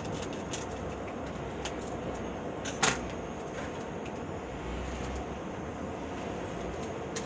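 A foil drink-powder sachet handled and cut open with scissors, giving light scattered clicks and crinkles over a steady background hum, with one sharp click about three seconds in.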